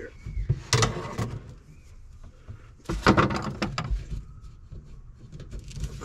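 Hand-work knocks, clunks and rattles as a fitting is worked into place, in two louder clusters about a second in and about three seconds in, with lighter scattered clicks between.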